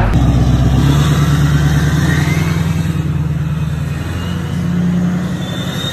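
Lifted diesel pickup truck driving away, its engine rumbling and fading as it pulls off. A thin whistle rises over the engine about two seconds in, and another high whistle sounds near the end.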